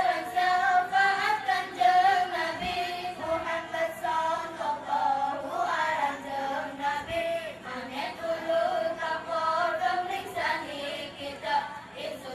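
A group of young children singing together, holding long notes in high voices.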